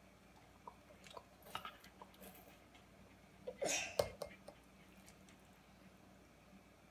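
Water poured from a glass measuring cup into a steel dog bowl of dry food and raw meat: a short splash about three and a half seconds in, ending in a sharp clink of glass against the bowl, with small handling clicks before and after.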